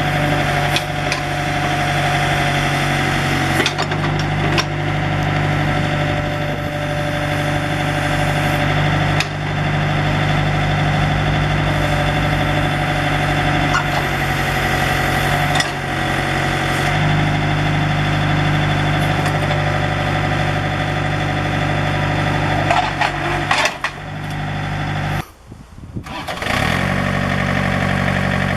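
Diesel engine of a John Deere 110 compact loader backhoe running steadily, with a few short clunks. About 25 seconds in the sound cuts out briefly, then the engine is heard again, rising in pitch as it comes up to speed.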